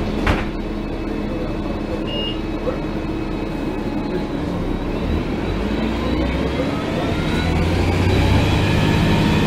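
Cummins ISL diesel engine of a 2004 Gillig Phantom transit bus idling with a steady hum, a click just after the start. From about halfway a whine rising in pitch joins in, and the low rumble grows louder near the end.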